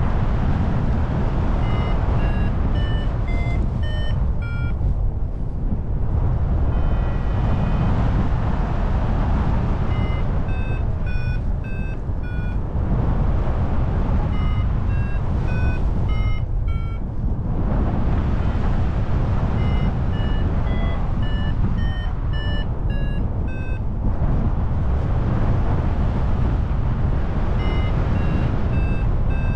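Wind rushing over the microphone in flight, with a paraglider's variometer beeping in runs of quick short beeps, about two or three a second, whose pitch keeps rising and falling: the vario's climb tone, signalling lift.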